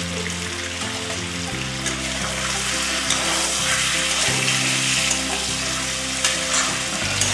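Pork pieces with potato and onion sizzling in oil in a kadai as the pork starts to give up its fat, with a spatula stirring the pieces and scraping against the pan.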